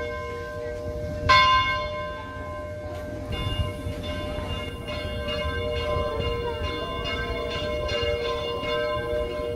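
Church bells ringing: a single loud stroke about a second in, then from about three seconds in quicker, overlapping strokes over a lingering hum.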